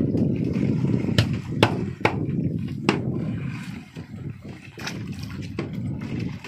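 Wind buffeting the microphone at sea, a low steady rumble that eases after about three and a half seconds, with six sharp knocks or splashes scattered through it.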